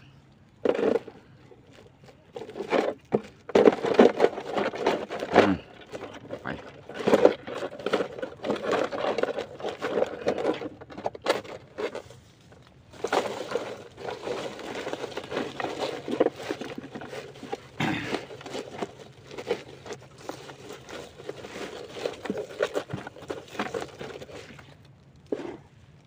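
Irregular bursts of rustling, crinkling and knocking: handling noise as the catch is put into a container or bag.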